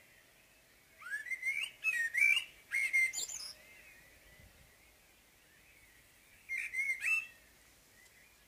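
Common blackbird singing: a longer warbling song phrase about a second in that ends in high twittering, and a shorter phrase near the end, over faint background birdsong.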